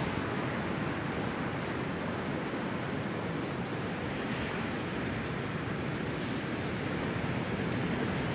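Surf on a sandy beach, a steady, even wash of noise.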